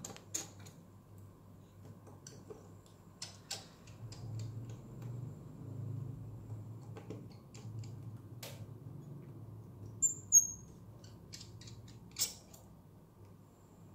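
Small scattered clicks and taps of a screwdriver and fingers working on a smartphone's opened internals and metal shield cans, over a faint low hum, with two short high squeaks about ten seconds in.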